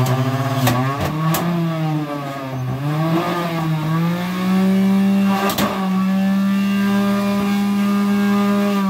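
Electric juicer motor running as ginger is pushed through it. Its hum drops in pitch under load and climbs back several times in the first few seconds, then runs steady at a higher pitch, with a few sharp clicks along the way.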